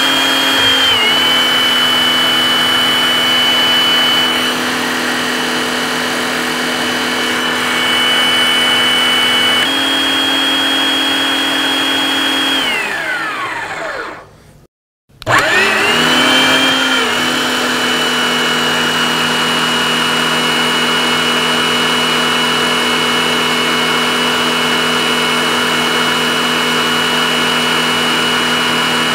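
Electric motor of a hydraulic torque-wrench pump running with a steady whine, its pitch dipping and stepping as it builds pressure to drive a low-profile hydraulic torque wrench. About halfway through it winds down with a falling pitch and stops for about a second. It then starts up again and runs steadily.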